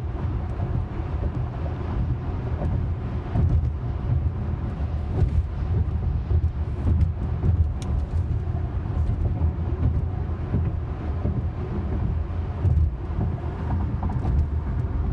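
Tesla electric car cruising at highway speed: steady low road and tyre rumble with some wind noise, and a few faint ticks.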